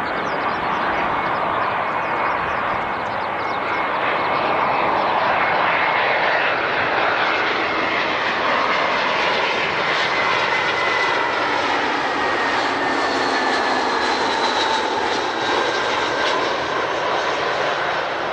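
Jet airliner engines running loud, a broad rushing roar that swells over the first few seconds and then holds. High whining tones glide slowly down in pitch through the second half.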